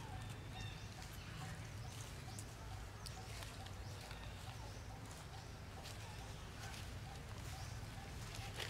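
Quiet outdoor ambience: a steady low rumble with faint repeated chirping and scattered small rustles, as of dry leaves being moved.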